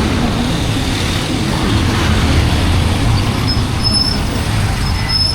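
Street traffic: vehicle engines and road noise running steadily, with a low rumble.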